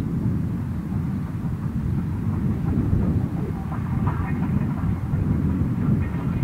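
Steam-hauled train running past with a steady low rumble, faint rattling joining in about halfway through.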